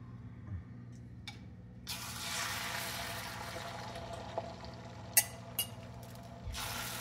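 Sizzling in a hot, oiled carbon-steel pan, starting suddenly about two seconds in and running steadily, with two sharp clicks of a utensil against the pan a little after the middle.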